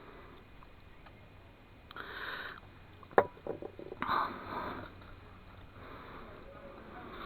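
Wet plaster of Paris being poured and scraped out of a mixing container: a few short scraping bursts, with one sharp knock of the container about three seconds in followed by several smaller knocks.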